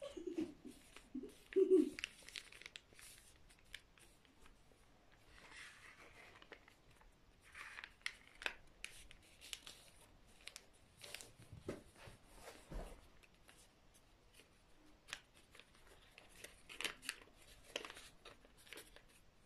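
A sheet of paper being folded by hand into an origami paper boat: scattered small crinkles, creasing snaps and short rustles. A brief louder low sound about two seconds in.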